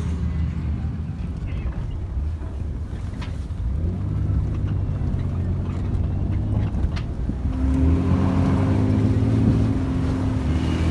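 Off-road 4x4 engines running on snow, revving up about four seconds in and again, higher, for a couple of seconds near the end.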